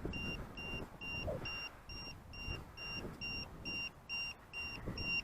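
An electronic beeper sounding short high beeps at a steady, even rhythm, most likely an alarm on the crashed RC foam jet, over low irregular rumbling and bumps.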